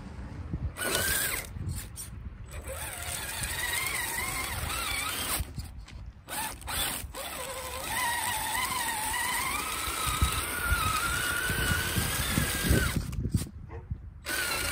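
Traxxas TRX-4 Sport RC crawler on Deep Terrain Traxx track units driving over snow banks: the electric motor and gears whine, rising and falling in pitch with the throttle, over the rough rumble of the tracks. The sound breaks off briefly several times.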